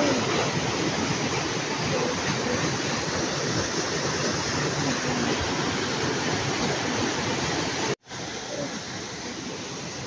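Waterfall: white water pouring down a rock chute into a pool, a loud, steady rush. About eight seconds in it breaks off for a moment, then a quieter rush of a smaller fall follows.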